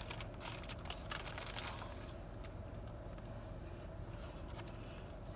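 Faint rustling and light clicks of sandwiches and paper wrappers being handled, mostly in the first couple of seconds, over a steady low hum.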